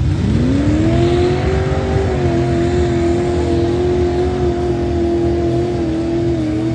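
A vehicle engine revving up quickly over the first second or so, then held at high revs with the pitch wavering slightly.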